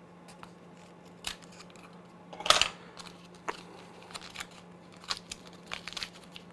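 Scissors cutting open the foil wrapper of a roll of 120 film, then hands crinkling and tearing the wrapper. The sound is scattered snips and crackles, the loudest about two and a half seconds in.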